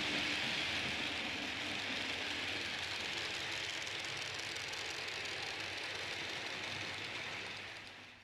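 H0-scale model train running along the layout's track: a steady whirring, rattling noise from the motor and wheels that fades away near the end.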